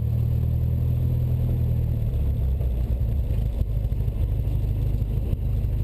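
Cessna 172 Skyhawk's piston engine and propeller droning steadily in the cockpit. The engine note shifts about two seconds in.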